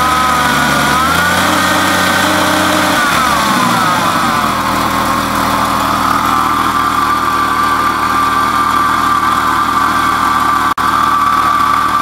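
Jeep Cherokee XJ's 4.0-litre straight-six running. It revs up about a second in and settles back to a steady idle by about four seconds. Throughout there is a steady high grinding whine, which is the idler pulley bearing.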